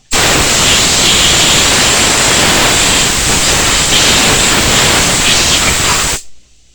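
Compressed air from an air line blowing packed grass out of a lawnmower drive wheel: a loud, steady hiss that starts suddenly and cuts off about six seconds in.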